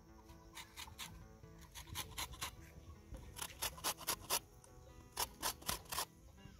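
A lemon rubbed against a flat metal hand grater to take off the peel, in quick scraping strokes that come in short runs of several a second, with soft background music underneath.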